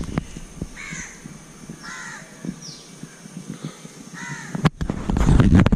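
A crow cawing, three separate caws over a few seconds. Near the end a short, loud burst of low rumbling noise, like wind or handling on the microphone, is the loudest thing.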